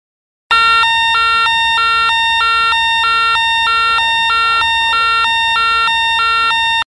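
DNI6000 wireless presence announcer's electronic alarm siren: a loud two-tone sound switching between a high and a low tone about twice a second. It starts about half a second in and cuts off suddenly near the end.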